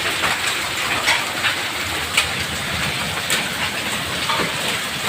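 Hailstorm with heavy rain: a steady, dense hiss of rain with sharp clicks scattered through it as hailstones strike hard surfaces.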